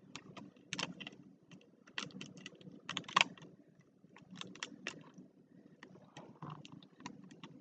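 Plastic tiles of a Rubik's Magic puzzle clicking and clacking against one another as they are folded and flipped by hand, in irregular sharp clicks with the loudest about three seconds in.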